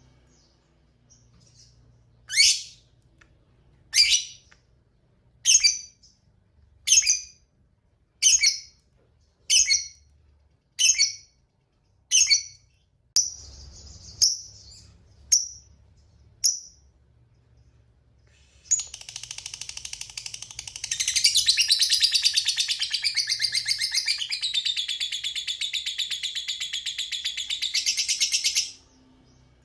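A lovebird calling: a string of about a dozen short, sharp high chirps, roughly one every second and a half, then a long rapid chattering trill, the prized 'ngekek panjang', lasting about ten seconds and stopping abruptly.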